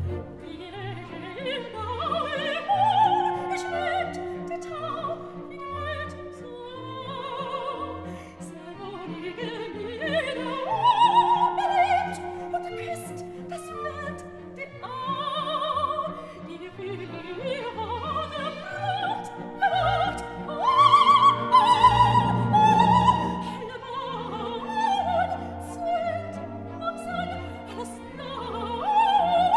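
Background music in a classical, operatic style: a melody with strong vibrato over a repeating pattern of low bass notes.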